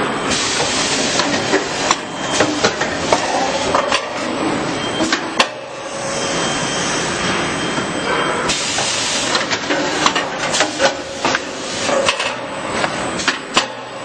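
Automatic sleeve shrink-wrapping line for welding wire coils running: a steady machine noise with two bursts of loud hiss, one about half a second in and one about eight and a half seconds in, and many clicks and knocks as the coils move along the rollers.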